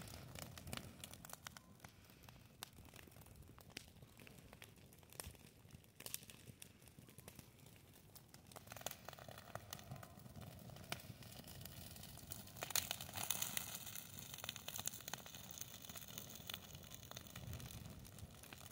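Dry grass and brush burning, a faint fire crackling with many small irregular snaps and pops, growing busier about two-thirds of the way through.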